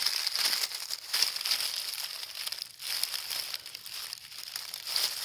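Dry leaf litter and grass crackling and rustling close to the microphone as a hand pushes through the undergrowth, in an irregular run of small crackles.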